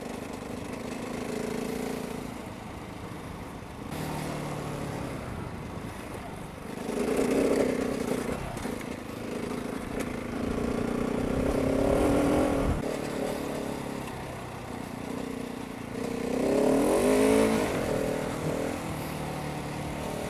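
Husqvarna 701 Enduro's single-cylinder four-stroke engine, fitted with a Barrett aftermarket muffler, pulling the bike along a dirt trail, with rushing noise behind it. It opens up and eases off three times, about seven, eleven and sixteen seconds in, and the last surge revs quickly up and down.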